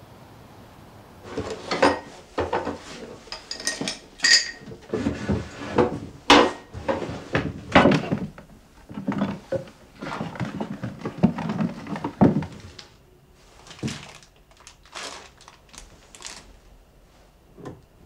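Rummaging through a wooden drawer and kitchen shelves: a dense string of clattering knocks and rattles as objects are shoved around and handled, thinning to a few quieter knocks for the last few seconds.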